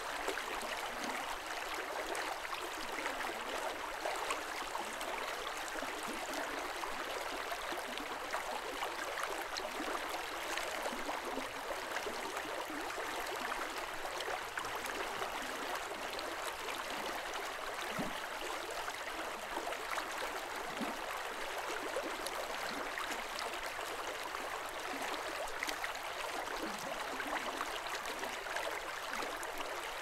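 Snowmelt mountain stream flowing steadily, a continuous rushing of water with a few low gurgles about two-thirds of the way through.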